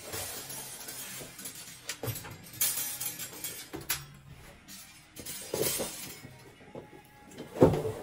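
Metal folding clothes-drying rack being opened out, its wire wings and legs rattling and clattering, with a loud clank near the end.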